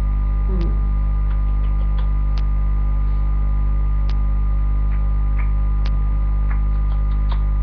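Steady electrical mains hum at 50 Hz with its overtones, with a scattered handful of faint clicks over it.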